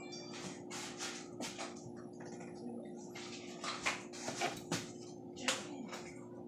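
Hands splitting open a freshly cooked corn-masa gordita: short, irregular rustling and crackling noises, a few louder ones near the middle and toward the end, over a steady low hum.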